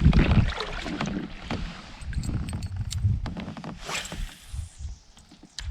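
Sounds of a kayak on the water: small knocks and clicks against the hull and gear over a low, uneven rumble of water and wind on the microphone.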